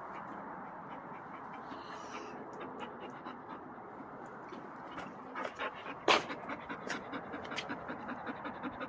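Bull terrier–Amstaff dog panting steadily, with a few sharp clicks from about five seconds in, the loudest about a second later.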